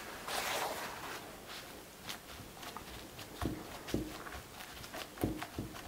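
Paper towel rustling as it is spread over sliced green tomatoes, then hands patting and pressing it down on a wooden cutting board, several soft thumps, to blot the juice from the salted slices.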